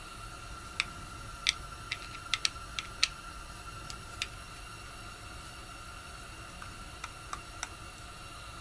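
Light clicks and taps of small tools and carburetor parts being handled at a workbench while the carburetor is taken apart. There are about eight clicks in the first few seconds and three more later on, over a steady faint hiss and hum.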